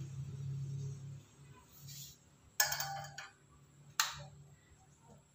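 Two sharp knocks of plastic caps being pressed onto the hooks of a metal clothes tree. The first, a couple of seconds in, rings briefly with a metallic tone; the second, a second or so later, is a short click.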